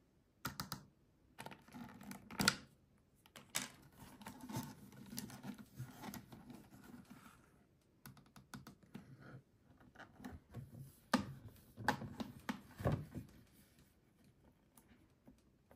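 Hard plastic parts of a toy potion bottle being handled: irregular clicks, taps and light scraping as the bottle is turned and its funnel-shaped top piece is moved.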